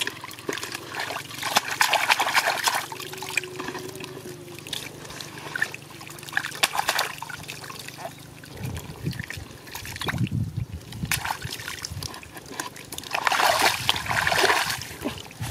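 Thick wet mud sloshing, squelching and splashing in irregular bursts as hands and a plastic basket scoop through it, with low wet thumps partway through.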